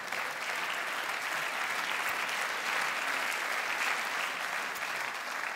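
Large theatre audience applauding steadily, the applause beginning to die away near the end.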